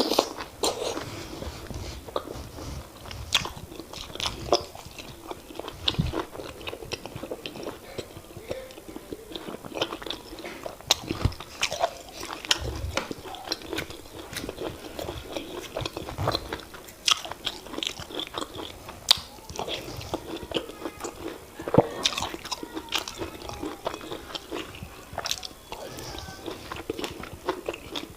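Close-miked eating of fufu with oha soup: wet chewing and mouth sounds, with many sharp, irregular smacks and clicks.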